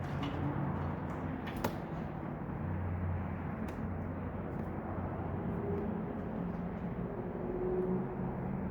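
A steady low hum with a single sharp click about one and a half seconds in.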